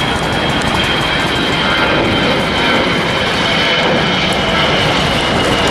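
Jet engines of a Virgin America Airbus A320-family airliner climbing out after takeoff: a steady loud rush with a high whine that slowly sinks in pitch.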